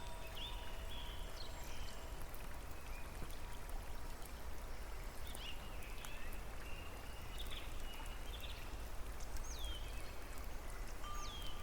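Steady rush of running water, with small birds giving short, scattered chirps that glide down in pitch. A faint held tone sounds in the first few seconds and returns near the end.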